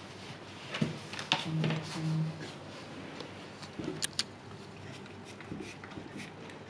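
A husky in labour shifting and licking on blankets in a whelping box: soft rustling and handling noises with a few sharp clicks, the sharpest a pair about four seconds in. A brief low hum comes twice in quick succession about two seconds in.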